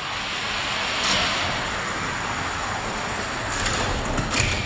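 Hot Wheels die-cast cars rolling down a long plastic track, a steady hiss of small wheels on plastic that grows louder as they come closer. Clattering knocks follow near the end as they reach the finish.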